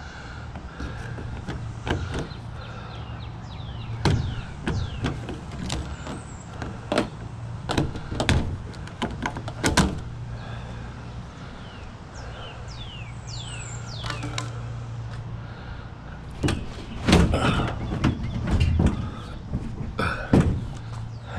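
Scrap metal knocking and clanking over a steady low mechanical hum. The hum fades about 16 seconds in, and louder bangs follow near the end.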